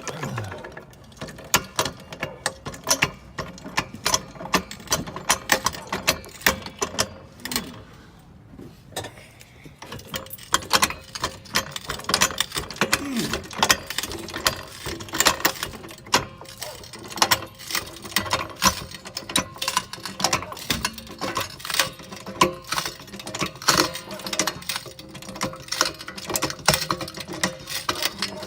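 Scissor jack being hand-cranked under a car: a long run of repeated metallic clicks and squeaks, a few a second, easing off briefly about a third of the way through.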